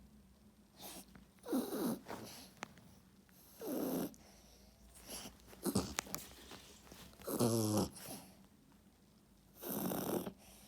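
Loud snoring: about five snoring breaths, roughly one every two seconds, some with a rattling buzz.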